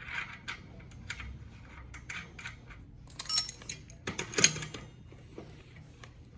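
Small metal parts clicking and clinking as the locking washer and nut are fitted onto the trike's rear axle, with two louder metallic clinks about three and four and a half seconds in.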